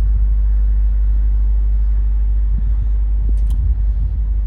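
Wind buffeting the microphone: a loud, steady low rumble with little sound above it.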